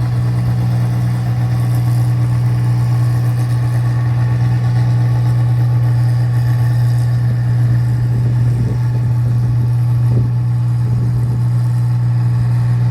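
Engine of a rice-processing machine running steadily at constant speed with a deep, even hum.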